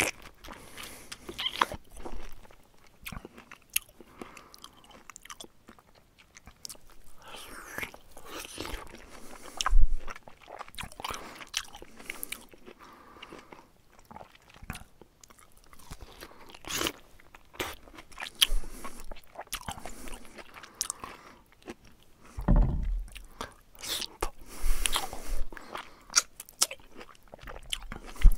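Bear chewing and crunching food, irregular bites and crunches coming in short bouts with pauses between.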